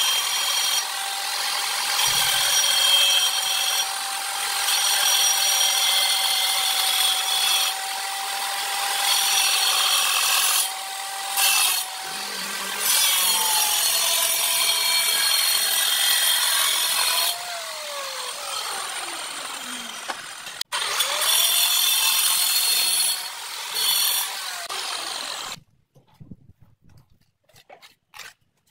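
Angle grinder cutting through a wall tile: a steady motor whine with the gritty hiss of the disc in the tile. The motor dips and winds down for a moment about two thirds of the way in, then runs up again and cuts off suddenly near the end.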